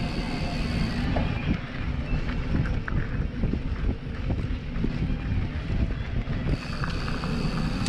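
Rattling and rumbling of a mountain bike rolling over a rough dirt track, picked up through a camera mounted on the seat post, with irregular knocks and clicks from the frame and some wind on the microphone.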